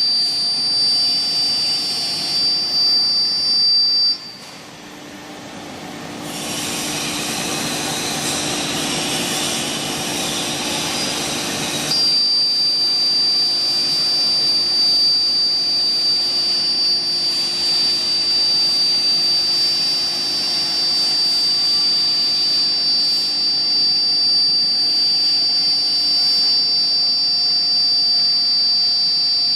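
CNC router (BMG 1325) spindle running with a steady high whine. The whine cuts off suddenly about four seconds in, a rushing noise follows for several seconds, and the whine comes back about twelve seconds in.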